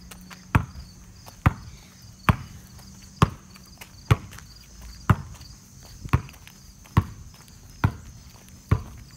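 Footsteps walking on pavement: a steady row of sharp taps, about one step a second.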